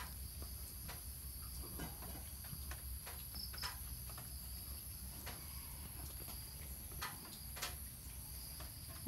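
Faint, steady high-pitched chirring of crickets, with scattered small clicks and soft rustles from a puppy gnawing a cord.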